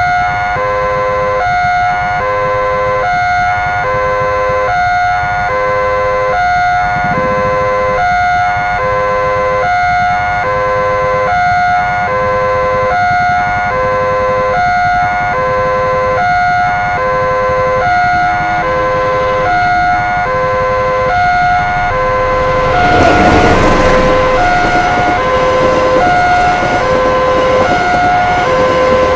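Indonesian railroad crossing warning alarm sounding its repeating electronic two-note signal from the loudspeaker on the crossing post. About 23 seconds in, a passenger train arrives and rushes across at speed, its wheel and body noise loud under the alarm.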